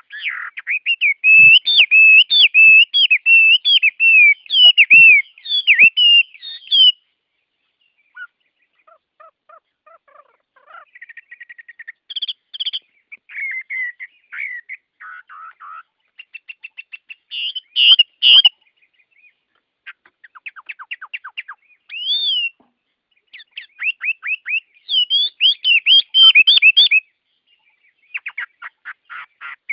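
Songbirds singing in a dawn chorus: a loud run of warbled, swooping phrases over the first seven seconds, then sparser quieter notes, with further bursts of song and fast trills later on.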